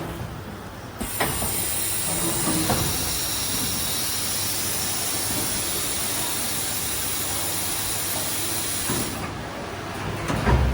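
Steady hiss from the automatic bottle silkscreen printing machine, starting abruptly about a second in and cutting off about nine seconds in.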